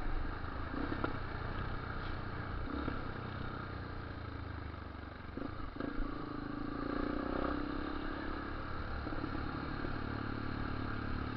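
Yamaha Lander 250 single-cylinder motorcycle engine running under way, with wind rushing over the camera microphone.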